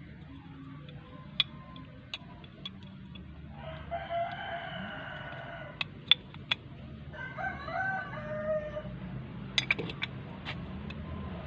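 A rooster crowing twice, each crow about a second and a half long. Scattered sharp clicks come before, between and after the crows.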